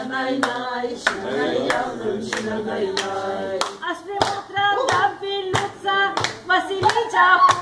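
A small group clapping along in rhythm by hand, with voices singing over the claps.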